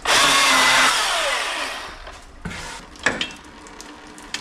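Battery-powered electric chainsaw cutting into a wooden block at full speed. After about a second the trigger is let go and the motor winds down with a falling whine. A couple of light knocks follow.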